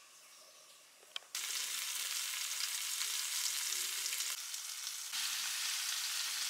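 Food sizzling in a hot frying pan. The sizzle starts abruptly about a second in, just after a single click, and drops away briefly in the middle.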